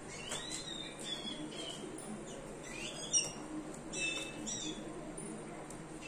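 Sparrows chirping: short, high chirps and quick rising or falling calls in scattered bursts, the loudest about three seconds in.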